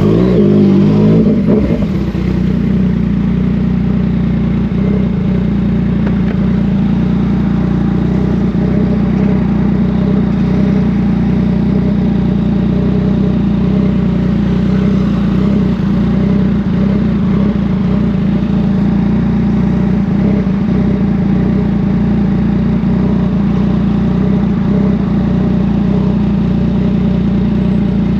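Yamaha MT-09 inline three-cylinder motorcycle engine running, with the revs shifting in the first couple of seconds and then holding steady.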